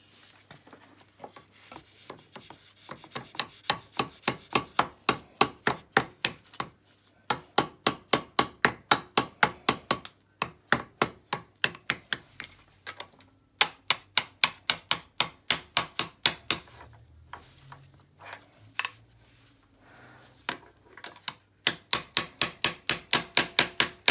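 Hammer blows driving a bushing housing onto the output shaft of a 200-250 cc ATV gearbox: runs of quick, evenly spaced sharp ringing taps, about four a second, with short pauses between runs.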